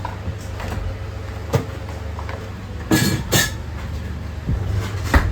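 A steady low rumble with several sharp knocks and clatters; the loudest two come close together about three seconds in.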